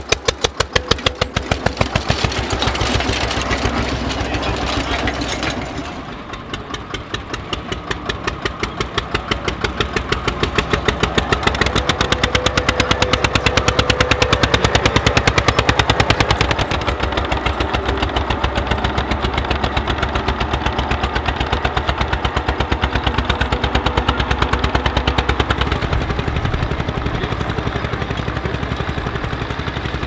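1950 Allgaier A22's single-cylinder diesel engine chugging with a fast, even exhaust beat while it pulls a two-furrow plough. The level dips about six seconds in and swells again a few seconds later.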